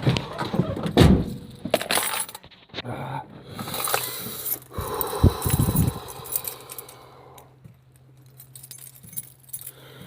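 Keys jangling with clicks and knocks as the ignition key and controls of the truck are handled before cranking, with a steady low hum setting in about three seconds in.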